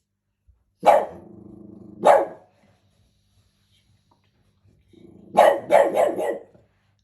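Small dog barking: one bark about a second in, a low growl, another bark a second later, then another low growl and a quick run of four barks near the end.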